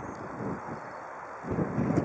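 Wind buffeting the microphone, a rough low rumble that gusts louder about one and a half seconds in.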